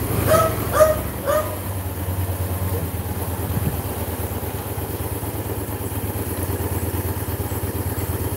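Motorcycle engine running steadily at low speed. A dog barks three quick times in the first second and a half.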